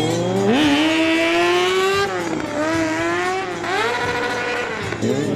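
Kawasaki sport motorcycle engine revving during stunt riding, its pitch climbing and falling in several swells.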